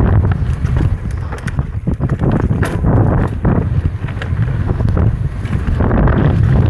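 Wind buffeting the action camera's microphone as an electric mountain bike descends a rough dirt trail at speed, with repeated short knocks and rattles from the bike over the ground.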